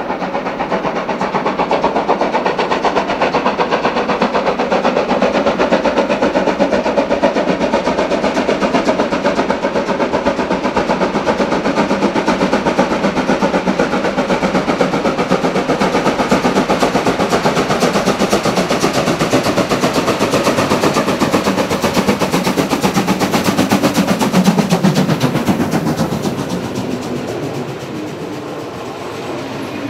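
Two-cylinder steam locomotive working hard under full steam, its rapid exhaust beats loud and rhythmic as it approaches and grows louder. It passes close about 25 seconds in, then the exhaust drops away and the coaches roll by with wheel clatter.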